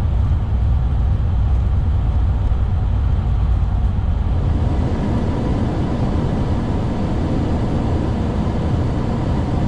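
Steady rumble of noise inside an Airbus A340's flight deck: air and engine noise, deepest in the low range. It grows fuller and louder in the middle range about halfway through.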